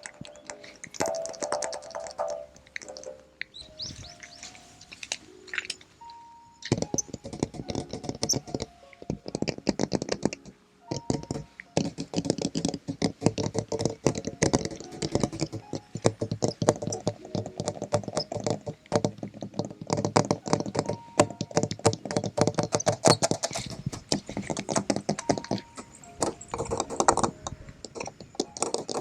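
Fingertips tapping quickly and repeatedly on the parts of a hydraulic excavator, ASMR-style, with some ringing tones in the first few seconds.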